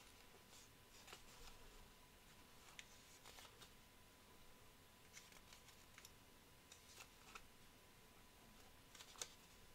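Near silence, broken by faint, scattered light ticks and scratches of a pen writing on sticky notes, with one sharper tick near the end.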